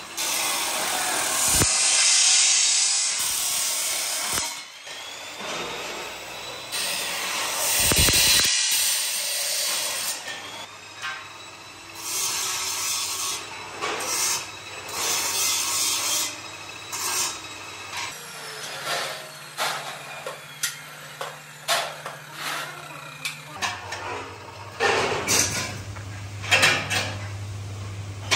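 Abrasive cut-off saw grinding through square steel tubing, a loud hiss that swells and eases over several cuts, then shorter bursts. In the last third, a run of short sharp knocks and clatters over a steady low hum.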